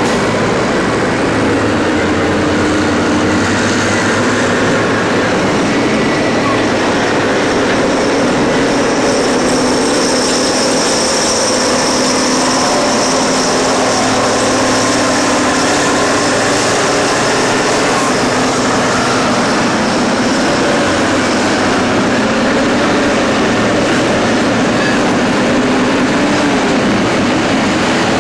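Heavy diesel engines of a Caterpillar 992C wheel loader and a Caterpillar 777 haul truck working at a quarry face: a loud, steady drone. A high whine rises over it for a few seconds in the middle.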